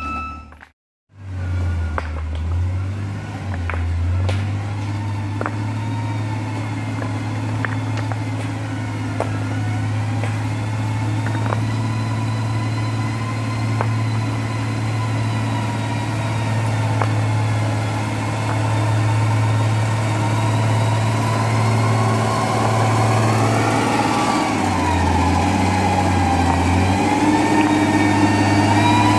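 Heavy engine of road construction machinery running steadily, with a thin whine above it that wavers slightly in pitch. The sound drops out for a split second about a second in.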